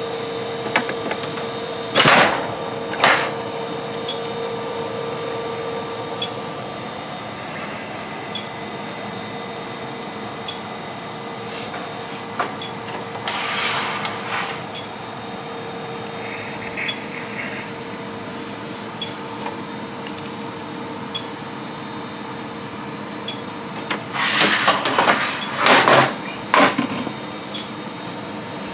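Battery tray of an APC Smart-UPS 2200XL rackmount UPS being pried and slid out of its metal chassis: short scrapes and knocks about two seconds in, again around fourteen seconds, and a louder cluster near the end. Under it runs a steady hum.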